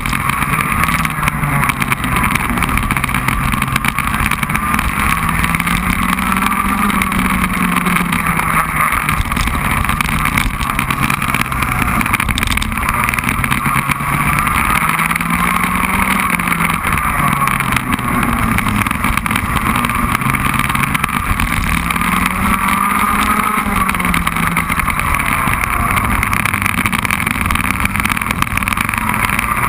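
Racing kart engine heard from a camera mounted on the kart, revving up on the straights and dropping off into the corners, its pitch rising and falling several times.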